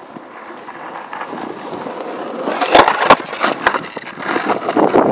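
Skateboard wheels rolling on pavement, growing louder as the board comes closer, then a run of sharp clacks about three seconds in as the board hits and slides on a concrete curb, with more rolling and clacks near the end.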